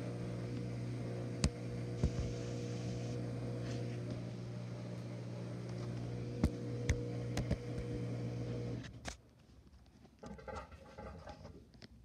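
LG front-loading washing machine running with a steady, pitched hum, with a few sharp clicks over it. The hum cuts off suddenly about nine seconds in, leaving faint rustling.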